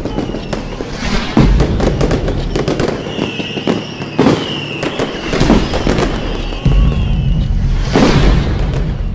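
Fireworks going off: repeated bangs and crackling, with high whistling tones that fall slightly in pitch around the middle.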